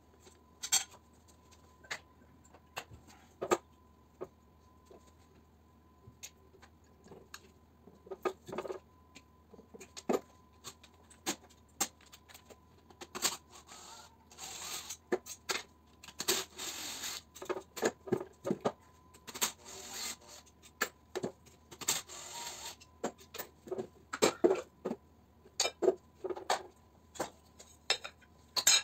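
Metal electric-motor parts such as stators, rotors and housings clinking and knocking as they are handled on the bench. A cordless drill runs in four short bursts of a second or two, starting about halfway through, while it is held to a motor housing.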